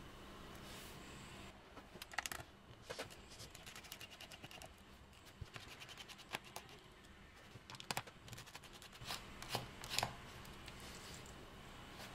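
Small Torx T8 screwdriver turning in a MacBook Pro's hinge screws: faint, irregular clicks and scratches of the bit in the screw heads, coming in small clusters.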